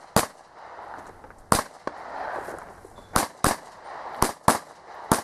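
Pistol shots fired in a practical-shooting stage: about seven sharp reports, unevenly spaced, with a few coming in quick pairs.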